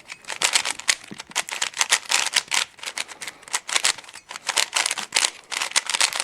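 Dayan GuHong 3x3 speed cube being turned rapidly: a dense, continuous run of quick plastic clicks as the layers turn.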